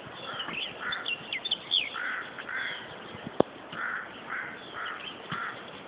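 Birds calling: a series of short calls about every half second, in runs, with thinner high chirps over them. A single sharp click comes about three and a half seconds in.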